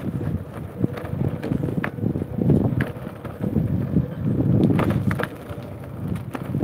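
Wind buffeting the phone's microphone in uneven gusts, a low rumble that rises and falls, with a few sharp clicks and a faint steady whine underneath.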